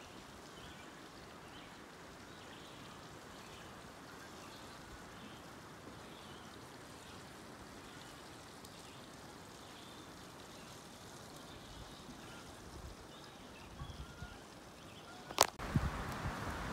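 Faint outdoor ambience: a steady soft hiss with scattered faint high chirps. Near the end a single sharp click, followed by louder wind noise on the microphone.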